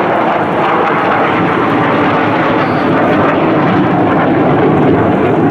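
Loud, steady jet engine noise of F-16 fighter jets passing overhead in a flyby.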